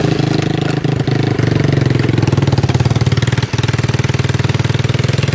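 Small engine of a homemade go-kart running steadily under way, with a brief knock about three and a half seconds in.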